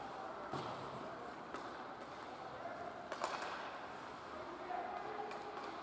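Ice hockey game heard from high in the stands: a steady arena hum with faint distant voices, and a few sharp clacks of sticks and puck, the loudest a little after three seconds in.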